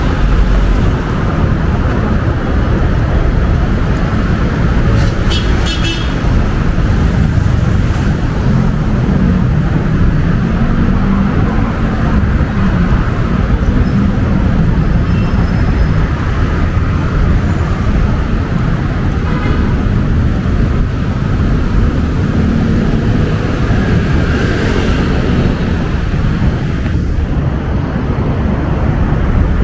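Steady din of heavy road traffic: engines and tyres of many vehicles passing continuously on a busy multi-lane avenue.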